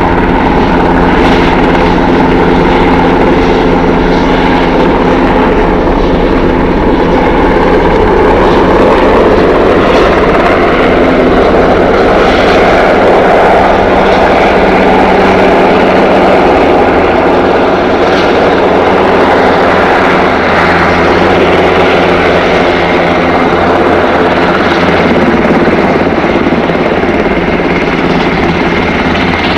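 Eurocopter AS532 Cougar military helicopter flying low overhead: loud, steady rotor and twin turboshaft engine noise, growing fuller around the middle as it comes closest.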